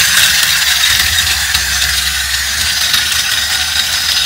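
Battery-powered toy steam locomotive running along plastic track, its small motor and gears making a steady whirring rattle.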